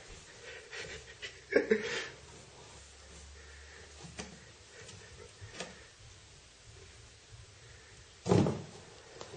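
Cardboard box knocked and scraped by a cat moving about inside it: scattered light knocks, with a louder cluster of thumps about one and a half seconds in and another single thump near the end.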